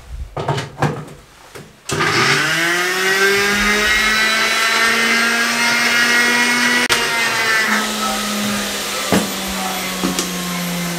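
Electric blender: a few knocks as the jug is set on its base, then about two seconds in the motor starts, its pitch rising as it spins up, and runs steadily, grinding a wet green chutney of herbs, garlic, green chillies and water.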